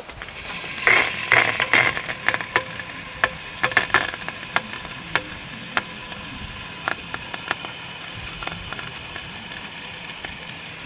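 Water from a garden hose running into a car radiator: a steady hiss with many small splashes and crackling spatters, as the radiator is filled to check it for leaks.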